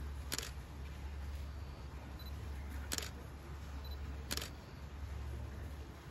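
Three camera shutter clicks, spaced a second or more apart, over a steady low hum.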